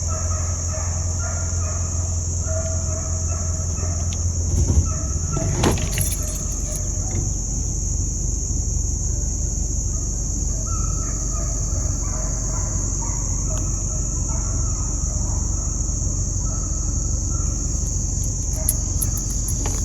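A pack of hunting hounds baying in the distance, their broken calls coming and going, over a steady high drone of insects.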